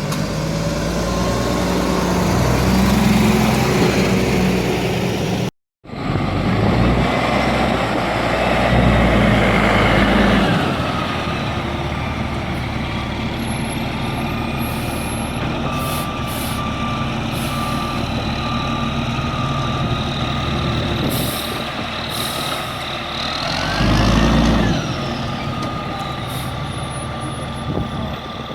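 Garbage truck engine revving hard for several seconds, then running steadily. A back-up alarm beeps in a steady series partway through, and the engine surges briefly near the end.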